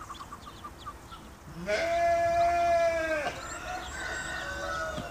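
A sheep bleats in one long, steady call about two seconds in, followed by a weaker, shorter bleat; Muscovy ducklings peep faintly before it.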